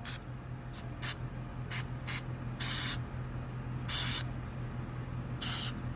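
Aerosol spray can of Duplicolor textured bed liner spraying in short hissing bursts, about eight in all. The longer bursts last about half a second.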